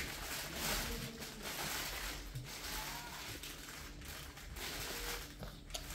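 Clear plastic bag around a nursery pear tree's roots crinkling and rustling as it is handled, coming and going unevenly, with a few sharp crackles.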